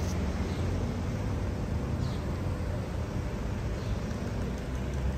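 Steady low rumble with a hiss over it, an even background noise with no distinct events.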